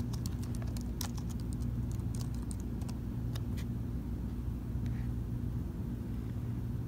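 Laptop keyboard being typed on in quick, irregular keystrokes for the first three and a half seconds or so, then a click or two, over a steady low hum.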